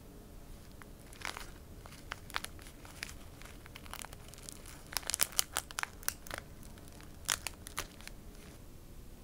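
Thin plastic packet of salted cherry blossoms crinkling and crackling as fingers pull it open, in irregular clusters of sharp crackles, the busiest about halfway through.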